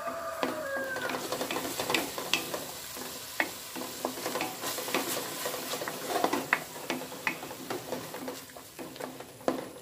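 Wooden spatula stirring onion and tomato-puree masala in a kadai, with many short clicks and knocks against the pan over a steady frying sizzle.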